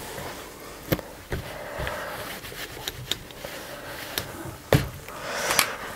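A couple of light knocks and soft rustling of fabric being handled while a seam is pressed.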